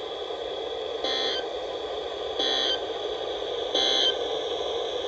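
Three short bursts of screeching digital data tones, about 1.4 seconds apart, from a NOAA Weather Radio broadcast over a Midland WR120 weather radio's speaker, with steady radio hiss beneath. They are the SAME end-of-message signal that closes the severe thunderstorm warning just read.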